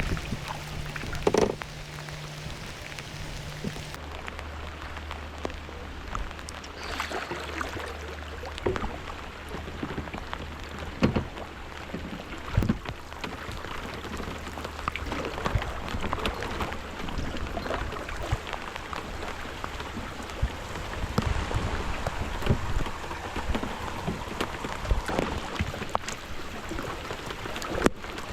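Rain falling steadily, with a haze of patter and scattered close drops ticking and knocking sharply. A steady low hum runs beneath from about four seconds in.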